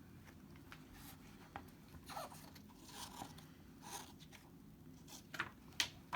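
Soft paper rustling and a few brief crackles as a picture book's page is handled and turned, over a low steady room hum. The two sharpest crackles come near the end.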